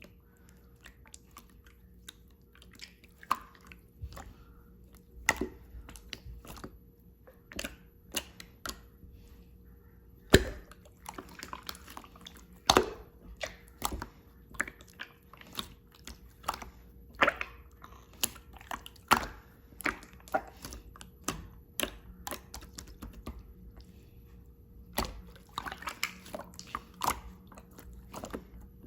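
Clear slime being squeezed, pressed and stretched by hand, giving irregular sticky clicks and wet pops, a few of them much louder than the rest.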